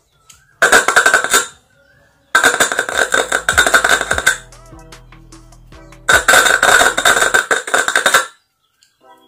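Piyano 60-watt horn driver unit playing music very loudly in three bursts of one to two seconds each. The sound cuts in and out as the leads are held to its terminals: the repaired unit being tested. The sound is thin in the bass and strong in the midrange.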